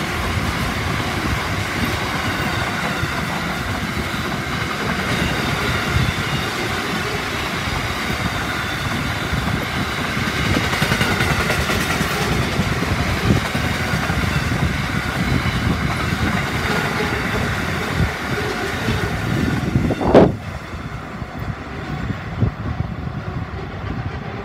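Long container freight train rolling past, its wagons' wheels rumbling and clattering on the rails, with faint high squealing tones over the top. About twenty seconds in there is a loud thump, and after it the sound falls away as the end of the train passes and recedes.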